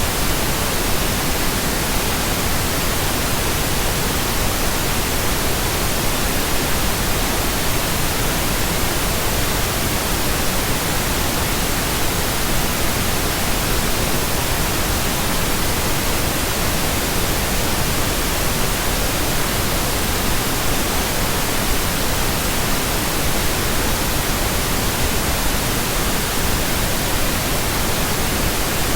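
Synthetic pink noise: a steady, even hiss that does not change.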